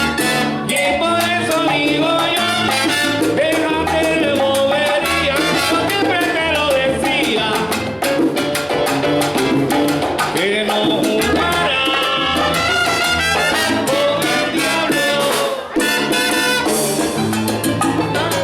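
Live salsa band playing: a lead voice over brass, bass and Latin percussion, with a short break in the music near the end before the band comes back in.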